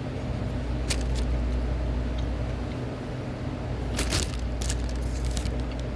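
Steady low hum of a car's cabin with the engine running, with a few short crackles and clicks about a second in and again around four to five and a half seconds in.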